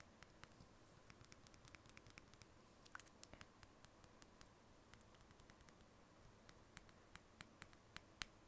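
Faint, irregular sharp clicks and crackles as a gummy candy in a clear plastic shell is pressed and handled at the lips, close to the microphone.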